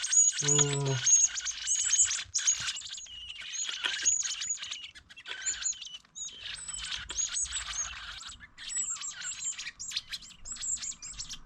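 Baby birds begging for food, a dense run of rapid, high-pitched chirps overlapping one another. A short human exclamation cuts in at the start.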